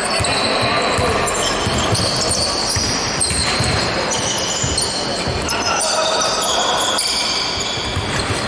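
Basketball game sound in a gym hall: the ball bouncing on the court with low thuds, many short high sneaker squeaks, and players' voices echoing.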